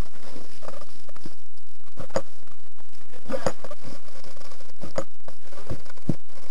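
Footsteps of boots on a hard tiled floor, with rustling and knocking from gear being carried. A handful of sharper knocks land at uneven intervals, roughly one every second or so.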